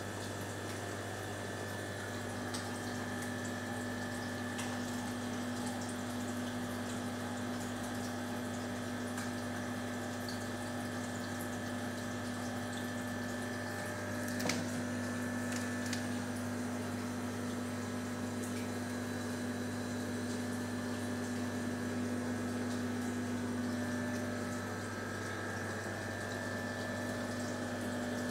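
Aquarium filter pump humming steadily, with water running and splashing into the tank. A single click about halfway through.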